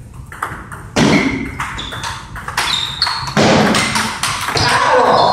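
Table tennis rally: the ball clicking off paddles and the table in a quick series of sharp taps, some hits with a short high ping.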